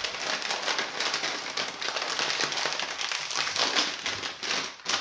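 Plastic crisp packaging crinkling and crackling as it is handled and opened: a dense stream of small crackles.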